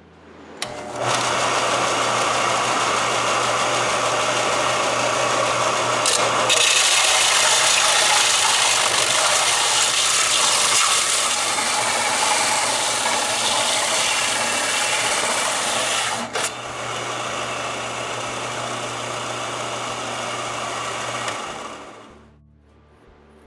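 Bench belt sander (4x36, 50-grit belt) starts up and runs, grinding the warped cast-iron exhaust manifold flange flat, louder through the middle stretch. It is switched off and spins down near the end.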